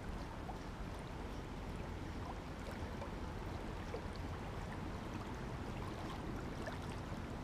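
Small waves lapping steadily at a rocky lakeshore, a quiet even wash with a few faint ticks scattered through it.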